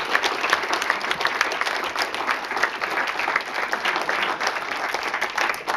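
Audience clapping steadily in a room full of seated listeners.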